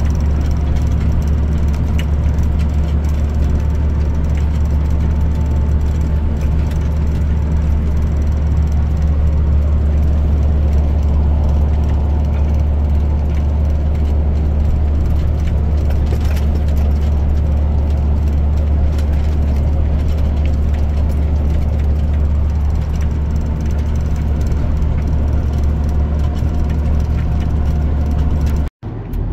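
John Deere 7410 tractor's diesel engine running steadily under load while pulling a 30-foot rotary hoe through the soil, heard from inside the cab. The sound cuts out for an instant near the end.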